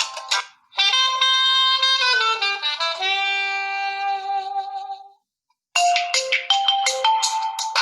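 Honor 9A preset ringtones playing one after another: a sustained synthesized chord tune that slides down in pitch and fades out about five seconds in, then after a brief silence a new ringtone of short, quick notes begins.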